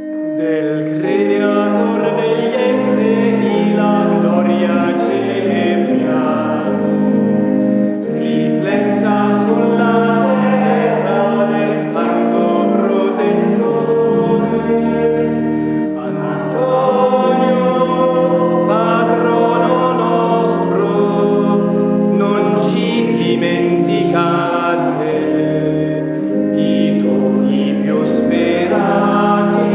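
Hymn sung by a group of voices in chorus over sustained organ chords.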